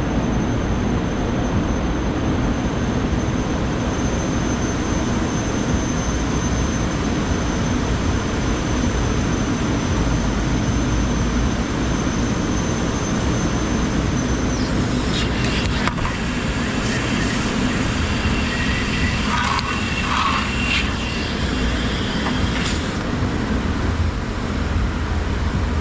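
A car running, heard from inside: a steady low rumble with an even hiss, and a thin high whine through the first half that stops about halfway. Faint tones and a few light knocks come in the second half.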